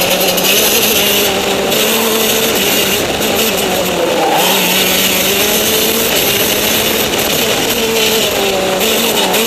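Go-kart engine running hard on track, heard from a camera mounted on the kart, its note dipping about four seconds in and climbing again as the throttle comes back on through the corners. Broad wind and road rush sits under the engine throughout.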